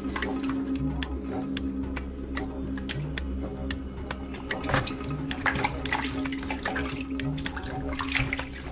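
Water splashing and sloshing in a plastic bowl as pieces of skinned filefish are rinsed by hand, with many short splashes over a steady low hum.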